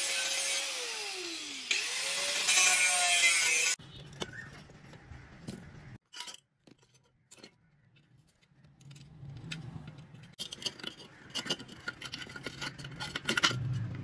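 Angle grinder cutting thin sheet steel, its motor whine falling as it slows and rising again as it speeds back up, until it stops abruptly about four seconds in. Then quiet, and later scattered clinks and scrapes of steel as pliers bend a sheet-metal tab.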